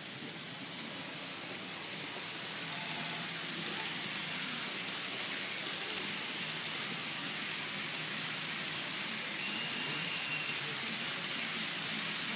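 Model freight train running past on curved track: a steady hiss-like rumble of wheels on rails that grows louder over the first few seconds as the train comes close, then holds.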